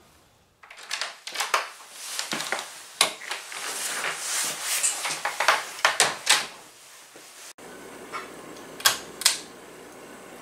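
Irregular clicks, knocks and light clatter of hard objects being handled, quick and uneven for several seconds, then a faint steady background with two knocks near the end.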